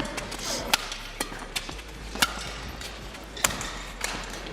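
Badminton rackets striking a shuttlecock during a rally: several sharp hits, about a second apart, over a steady background of arena noise.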